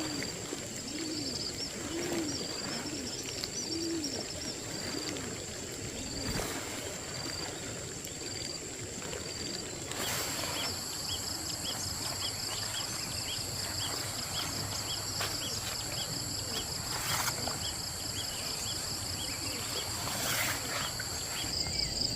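Outdoor forest ambience: a bird gives a string of low, arched calls about once a second for the first six seconds, over steady high-pitched insect trilling. A few sharp clicks come through now and then.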